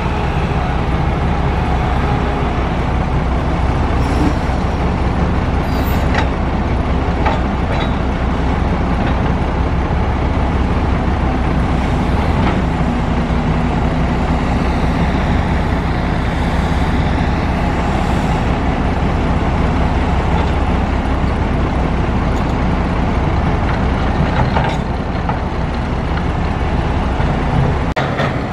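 Heavy diesel engines of a Volvo crawler excavator and a Hyundai dump truck running steadily under load while the excavator digs and loads dirt and rock into the truck's bed, with a few brief knocks along the way.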